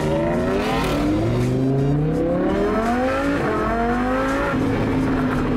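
Lamborghini Huracán's V10 engine accelerating, heard from inside the cabin: the engine note climbs, drops at a quick upshift about a second in, climbs again to a second upshift about three and a half seconds in, then settles into a steady cruise.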